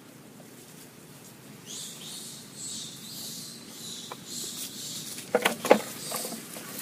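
A young macaque squeals in several short, sharp cries near the end as an adult holds it down. Under them a high chirring runs from about two seconds in.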